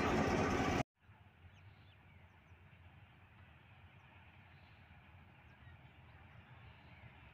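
A GMCU-15 diesel locomotive's engine running loud and close for under a second, cut off abruptly. Then quiet outdoor ambience: a faint low rumble with a few faint bird chirps.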